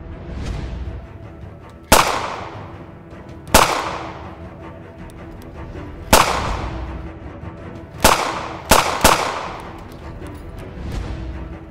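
Six pistol shots, each with a long echoing tail, fired at uneven intervals, with three close together near the end, over a background music score.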